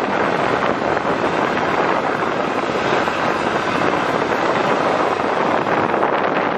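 Steady noise inside the driver's cab of a moving coach: the running engine mixed with road and wind noise, with wind buffeting the microphone.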